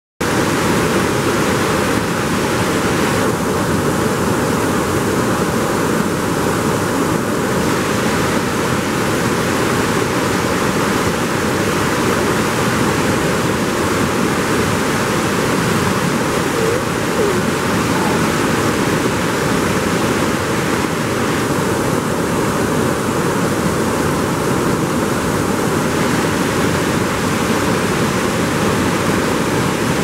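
Rushing water, a steady loud roar of a river or falls over rocks, unbroken throughout.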